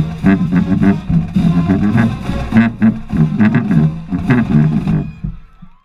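Marching band playing a stand tune, with a loud low sousaphone line and drum hits on the beat. The music fades out near the end.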